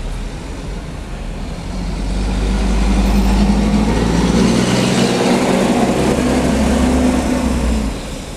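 Garbage truck's diesel engine running alongside in traffic, with road noise, growing louder about two seconds in and dropping away near the end.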